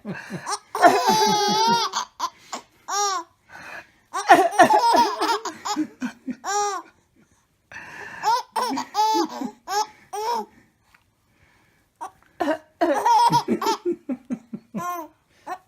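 Baby laughing in repeated bouts of high-pitched giggles, with short pauses between them.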